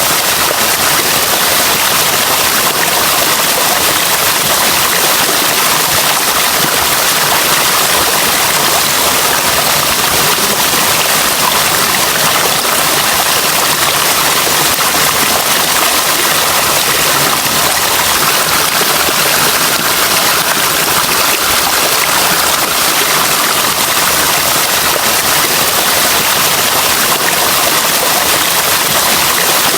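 Running water, a steady unbroken rush with no pauses or separate splashes.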